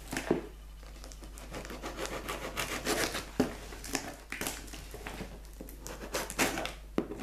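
A large postal parcel being handled and worked open by hand: irregular scraping, rustling and sharp knocks of the packaging.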